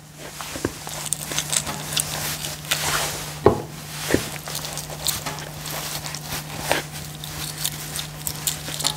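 Hands working a raw turkey leg in a plastic bowl, pushing garlic into the cuts in the flesh: soft, irregular handling noises with scattered small knocks, two sharper ones about three and a half and four seconds in, over a steady low hum.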